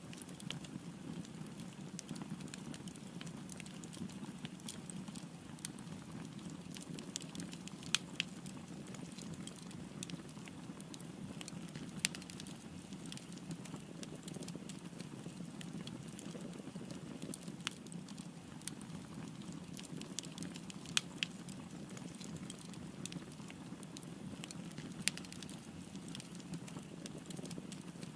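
Wood fire burning with a steady low rush of flames and scattered sharp crackles and pops, a few louder snaps standing out.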